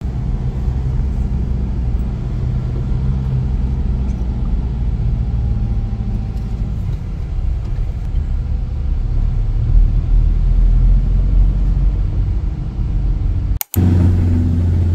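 Steady low engine rumble and road noise heard from inside a moving vehicle. Near the end the sound cuts out for an instant and a different, louder low engine hum follows.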